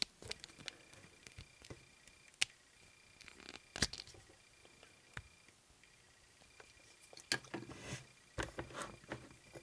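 Faint plastic clicks and light scraping as fingers work the removable helmet off a small plastic action figure, with one sharper click a little before the halfway point and a cluster of clicks and rustling near the end.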